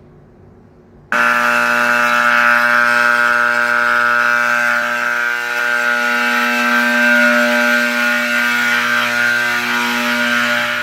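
Vintage Edwards Adaptahorn AC fire alarm horn switching on about a second in and sounding continuously: a loud, steady, buzzing blare at one unchanging pitch.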